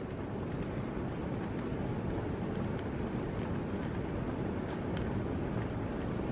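Heavy, wind-driven rain pouring down in a steady rush, with a few faint ticks of single drops.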